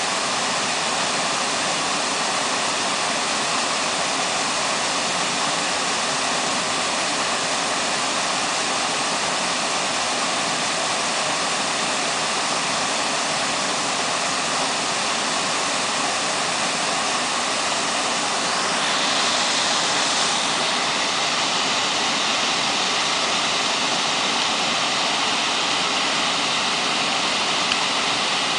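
Waterfall pouring: a steady rush of falling water that grows a little louder and brighter about two-thirds of the way through.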